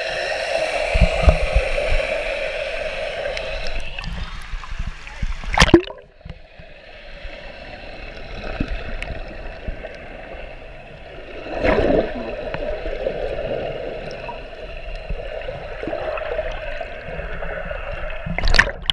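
Churning, bubbling pool water heard underwater, a muffled rush and gurgle. Two sharp thumps stand out, one about six seconds in and one near the end.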